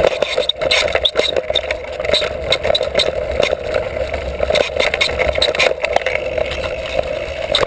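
Mountain bike ridden fast along a dirt singletrack: steady running noise of the tyres on the trail, broken by frequent short rattles and knocks as the bike jolts over bumps.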